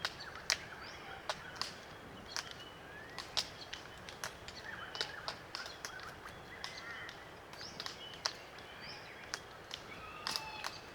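Glossy black cockatoos feeding on Allocasuarina cones: irregular sharp clicks and cracks of the feeding, with a few soft, short creaking calls now and then.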